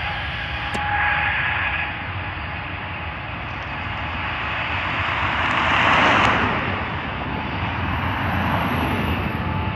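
Jet airliner's engines rumbling steadily across the airfield, with cars passing close by on the road. The loudest moment is a car's tyre noise swelling and fading about six seconds in; a thin engine whine fades out early on.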